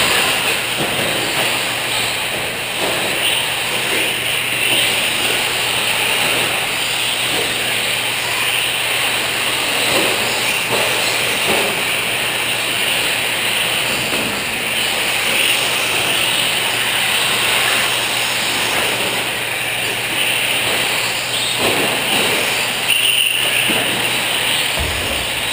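Several radio-controlled 4WD short course trucks racing on a dirt track: a steady mix of motor whine and hiss, with scattered small knocks.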